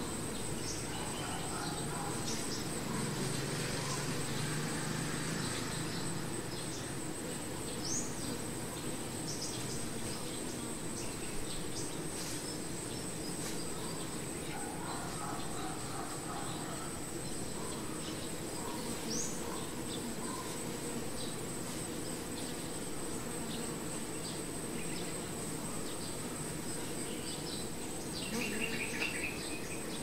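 A honey bee swarm cluster buzzing: a dense, steady hum of many bees. Over it runs a constant high-pitched insect whine, with a few short chirps.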